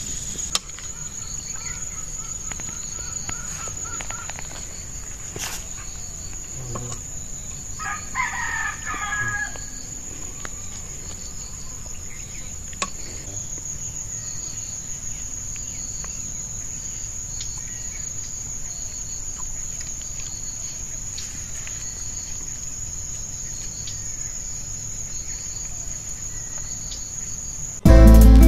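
A rooster crows once, about eight seconds in, over a steady high-pitched insect trill from crickets. Music starts abruptly at the very end.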